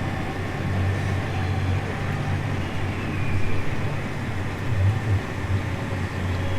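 Engine of large harvest machinery running steadily with a low hum.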